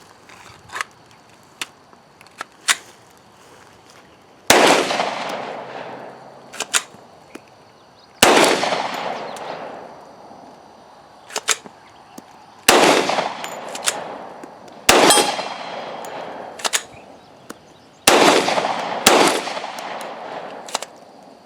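Five 10mm pistol shots from a Glock 40, each trailing off in a long echo, with sharp metallic clicks between them as the pistol is handled. The mud-soaked pistol is not cycling fully and keeps malfunctioning.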